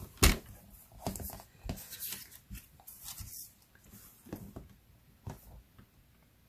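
Paper trimmer and patterned paper being handled: a sharp click about a quarter second in, then a scatter of light clicks and paper rustles as the sheet is positioned and cut, fading to near quiet after about five seconds.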